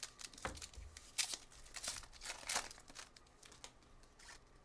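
Trading-card pack wrapper crinkling and tearing as it is ripped open by hand, a run of sharp crackles that thins out over the last second or so.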